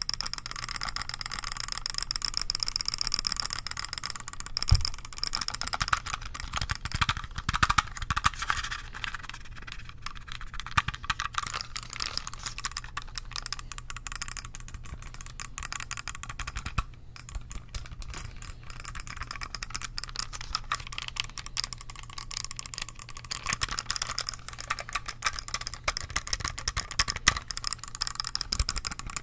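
Rapid tapping and button clicking on an Acer computer mouse: a dense, continuous run of small plastic clicks and taps.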